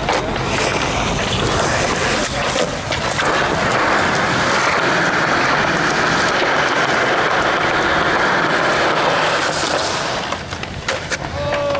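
Skateboard wheels rolling over concrete, a steady loud rolling noise, with a few sharp clacks of the board near the start, about three seconds in and near the end.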